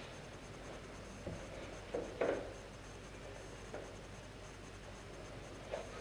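Quiet rustling and scuffing of a player moving about: clothing and gear rubbing and soft footsteps, with a few light knocks, the loudest pair about two seconds in and another just before the end.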